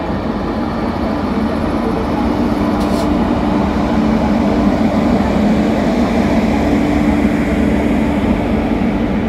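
An Indian Railways WAP-7 electric locomotive and its passenger coaches rolling past a platform: a steady rumble of wheels on rails with a constant hum, swelling slightly as the coaches go by.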